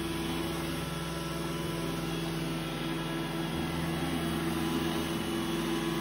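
iRobot Roomba i7 robot vacuum running a cleaning cycle: a steady motor hum with a low drone over the whir of its suction.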